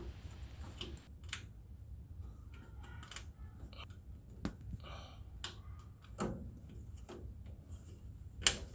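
Scattered light clicks and knocks of hands working on a washing machine, with a sharper knock near the end, over a faint low hum.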